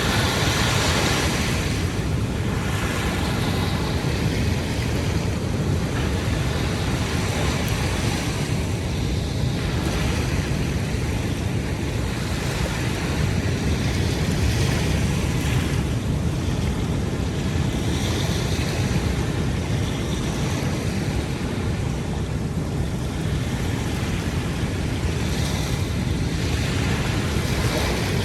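Ocean surf washing onto a beach, swelling every few seconds over a steady rush, with wind rumbling on the microphone.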